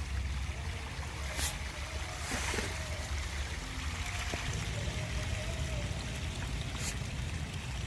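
Steady splashing and trickling of pond water churned by pangasius fry at feeding, with a low rumble of wind on the microphone and a couple of faint clicks.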